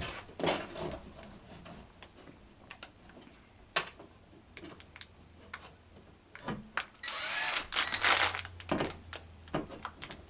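Scattered knocks and clicks of handling tools and wall hardware, then a power drill running for a few seconds from a little past the middle.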